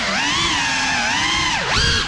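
Cinelog 35 cinewhoop FPV drone's motors and propellers on 6S, whining with a pitch that swoops up and down as the throttle changes, dipping low and climbing again near the end.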